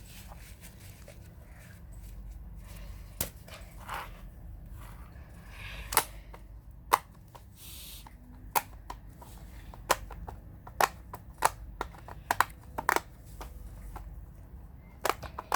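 Bubbles of a square silicone pop-it fidget toy being pressed one after another, making sharp pops at irregular intervals. The pops are sparse at first and come about every half second in the second half.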